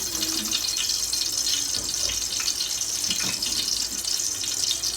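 Oil and ghee heating in a cooking pot, giving a steady high sizzling hiss with faint crackles.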